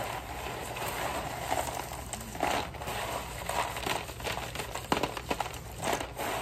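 Peanuts and their papery husks rustling and rattling as they are shaken and sifted in a woven bamboo tray to winnow the shells off. The rattling is irregular, with a few sharper clicks about five seconds in.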